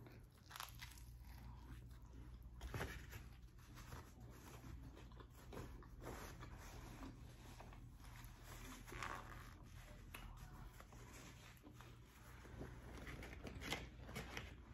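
Faint chewing of a mouthful of cheeseburger: soft, wet mouth sounds and small clicks, irregular and quiet, with a napkin rubbed over the mouth partway through.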